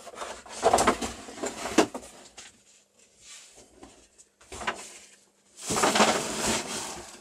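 Large cardboard shipping box being handled and moved: a few knocks and scrapes of cardboard in the first two seconds, then a longer, louder scraping rustle from about two-thirds of the way in.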